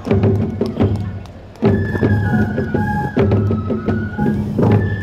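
Traditional tiger-dance festival music: taiko drum strokes beating a steady rhythm, joined about two seconds in by a bamboo flute (fue) playing a held, stepping melody.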